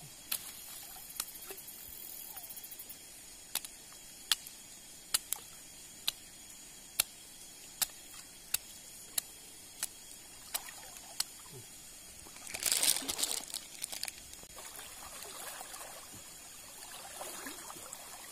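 Shallow stream water trickling as a person wades in it, with a brief loud burst of splashing about thirteen seconds in. Through the first two-thirds a sharp click sounds about once every three-quarters of a second.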